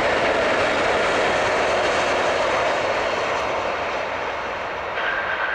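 Airbus A340-300 jet engines running at approach power as the airliner flares just above the runway to land: a steady rushing jet noise whose pitch slowly falls. A thin steady high whine joins near the end.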